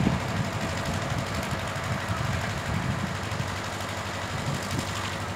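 Low, steady rumble of a diesel locomotive and its train running off into the distance.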